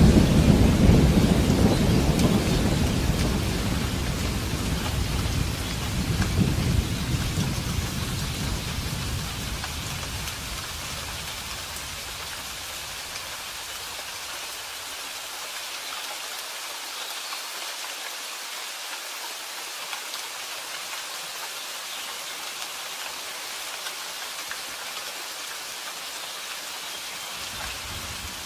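Steady rain with a roll of thunder at the start that rumbles down and dies away over about ten seconds, swelling once more about six seconds in. After that only the even hiss of the rain remains.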